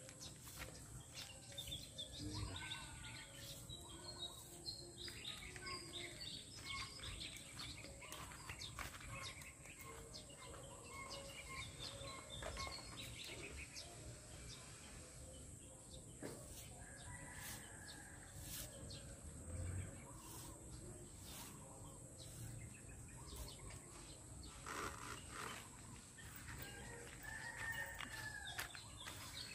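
Faint outdoor birdsong: scattered chirps and short calls, among them fowl calling, over light clicks and rustles of netting being handled.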